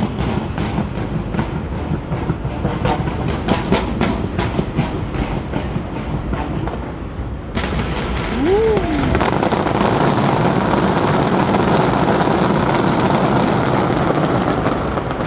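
Fireworks display going off: a run of sharp pops and cracks, then, a little past halfway, a dense, continuous crackling wash.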